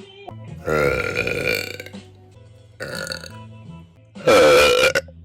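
A woman burping three times over background music: a long, loud burp about a second in, a short one near the middle, and the loudest, about a second long, near the end.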